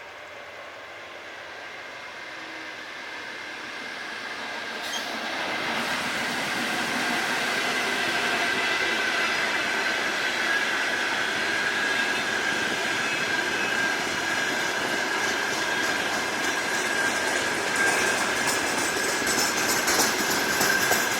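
A freight train of empty wagons rolling past on the rails, growing louder over the first several seconds as it draws near and then running steadily. A thin, steady wheel squeal rides over the rumble, and rail-joint clicks come through near the end.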